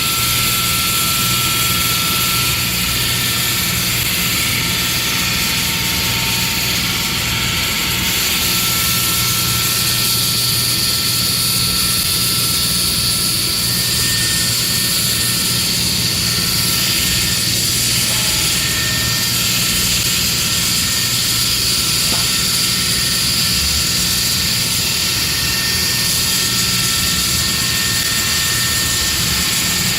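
Diamond drilling equipment cutting through a rock ledge, running steadily and unbroken with a high whine over a low hum.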